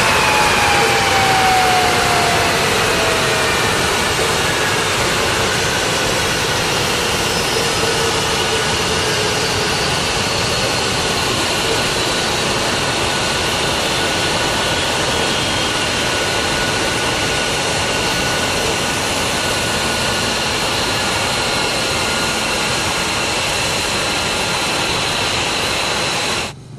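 Jet engines of F-22 Raptors running on the flightline: the Pratt & Whitney F119 turbofans give a loud, steady roar with high whining tones. In the first several seconds, one whine glides down in pitch. The roar cuts off suddenly near the end.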